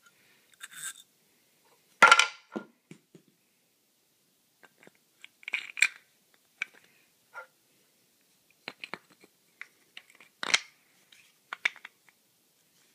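Metal double clamp for a light stand being handled and tightened by hand: scattered clicks, knocks and rattles, the loudest about two seconds in, with others near six and ten and a half seconds.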